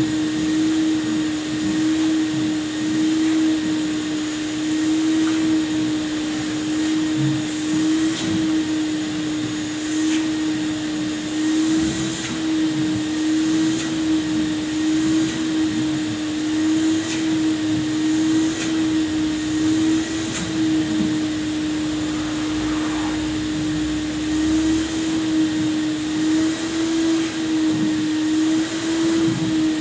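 Vacuum cleaner running with a steady motor hum and hiss of suction, being worked over upholstered sofa chairs.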